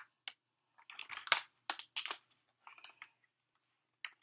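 Steel Smith & Wesson handcuffs clinking and clicking as they are put on: a string of short, sharp metallic clicks and rattles at an uneven pace, loudest about one to two seconds in.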